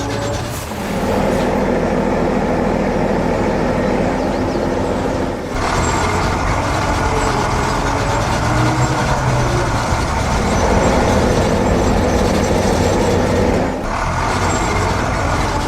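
Heavy construction machinery running steadily, as cartoon sound effects. The sound shifts in character near the start, about five and a half seconds in, and again near the end.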